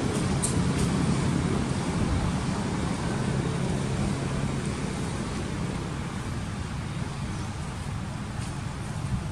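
Steady low outdoor rumble. A faint low hum in it eases off after about four seconds.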